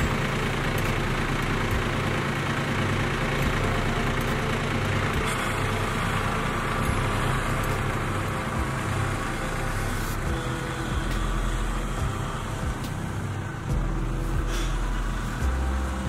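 Kubota B2261 compact tractor's three-cylinder diesel engine running steadily as the tractor drives off.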